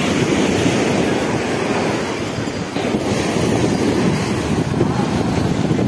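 Wind rumbling steadily on the microphone, mixed with surf washing onto a sandy beach.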